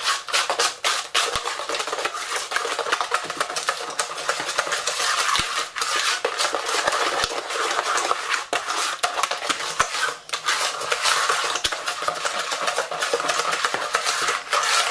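Hand whisk beating a thick quark cheesecake batter in a plastic bowl: fast, steady clicking and scraping of the wires against the bowl, with a brief pause about ten seconds in.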